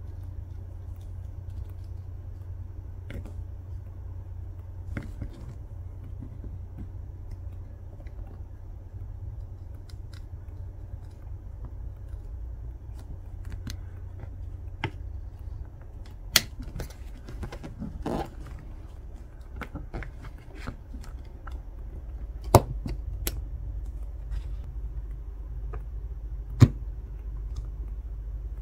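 Plastic pry tool scraping and clicking along the edge of an iPhone 14 Pro's display as the screen is pried from the frame, with a few loud sharp clicks in the second half. A steady low hum runs underneath.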